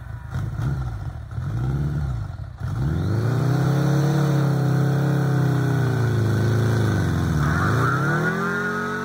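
Heavy motorcycle engine, a Honda Gold Wing as the strongman remembers it, revved in short blips for the first couple of seconds, then run up and held at high revs with small wavers and a brief dip near the end. The bike is straining against ropes held by a man, so the engine is pulling under load.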